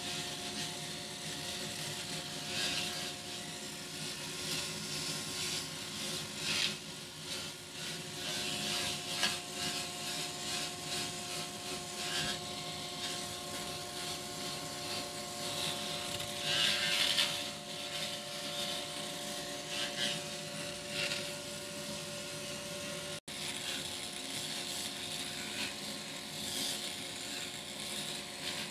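A Dremel rotary tool with a right-angle head runs steadily, spinning a foam-backed hook-and-loop sanding disc against arbutus burl wood. Its high motor whine holds steady under a scratchy rasp that swells and fades as the disc is pressed and moved over the wood. The sound breaks off for an instant about three-quarters of the way through.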